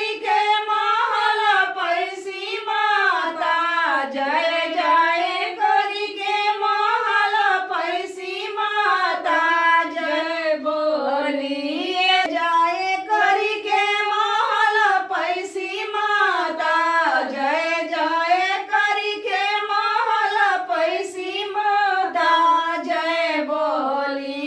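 Women's voices singing a devotional puja song together in a steady, continuous melody.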